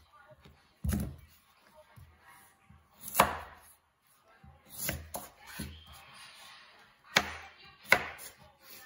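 Large kitchen knife slicing through a raw beetroot and striking a wooden cutting board, about six separate chops at uneven intervals.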